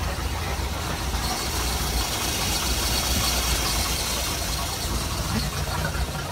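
MerCruiser 4.3 Vortec V6 engine idling steadily, smooth and quiet.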